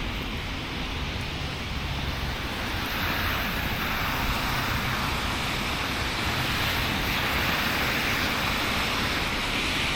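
Steady rushing outdoor background noise that grows a little louder and hissier about three seconds in.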